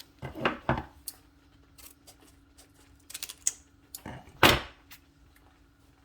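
Kitchen handling noises: a few clicks and knocks of containers and utensils being picked up and handled, the loudest a single sharp knock about four and a half seconds in, over a faint steady low hum.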